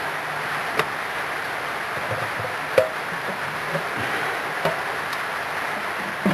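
Multi-grip pliers levering a stuck paint tin lid: a few sharp metallic clicks and knocks as the jaws bite and slip on the lid's rim, the loudest about three seconds in, over a steady background hiss.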